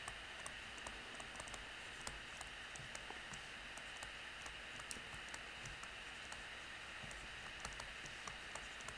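Faint, irregular tapping and scratching of a stylus writing on a tablet screen, over a steady low hiss.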